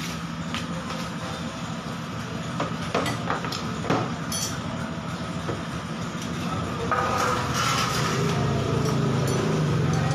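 Motor scooter engine running steadily at idle, with a few sharp clicks and light knocks of work on it; about seven seconds in the engine gets louder.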